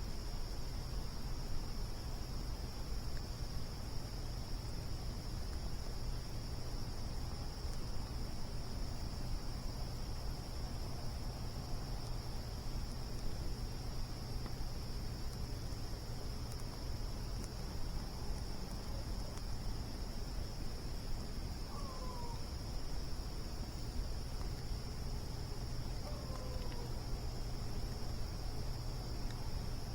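Crickets trilling steadily at a high pitch over a low steady rumble, with two short falling calls about two-thirds of the way through and again near the end.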